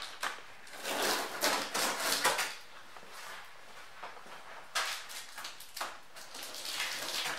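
Large cardboard box being opened and handled: irregular scraping and rustling of cardboard, with a few knocks.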